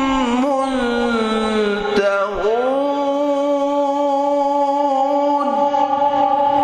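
A male Quran reciter's voice chanting in the melodic mujawwad style, drawing out a single syllable into a long melisma. It moves through quick ornamented turns at first, slides down and back up in pitch about two seconds in, then holds one long steady note.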